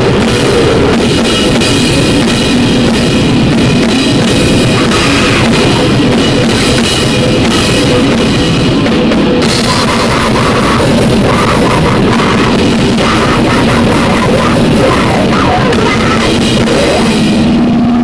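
Harsh noise music: a loud, dense, distorted wall of noise with rapid pulsing and no let-up in level. Near the end the high, hissing part drops out, leaving a steady low drone.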